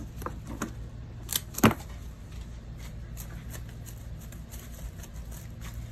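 Cut greens and flower stems being handled and pushed into an arrangement: a scatter of small clicks and rustles, with one sharp knock about a second and a half in. A steady low hum runs underneath.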